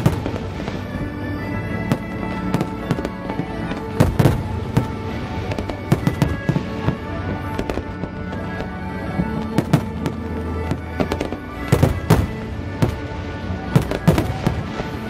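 Aerial fireworks bursting in a rapid string of sharp bangs and crackles, with music playing underneath. The heaviest bangs come about four seconds in and again near the end.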